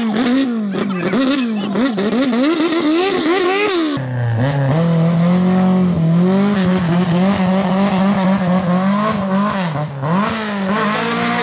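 Rally car engine revving hard in rapid up-and-down bursts as the car is pushed and driven out of a ditch, wheels spinning in the mud, then held at steady high revs; it drops briefly near the end and picks up again.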